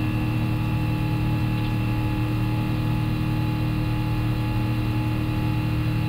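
Steady flight-deck drone of an Airbus A350-1000 in its climb after takeoff: a constant hum with several fixed tones layered over airflow noise, unchanging throughout.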